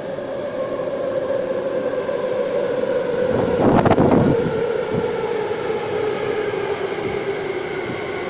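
Electric Ma On Shan Line metro train running alongside the platform, its motor whine falling slowly in pitch, with a loud brief rush of noise about four seconds in.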